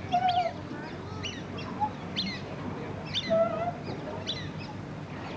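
Ducks calling: a string of short, high, falling peeps about once a second, with two brief lower calls, one near the start and one about three seconds in.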